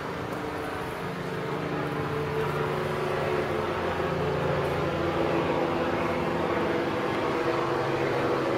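A steady mechanical hum with several held low tones over a background hiss, growing slightly louder over the first few seconds and then holding level.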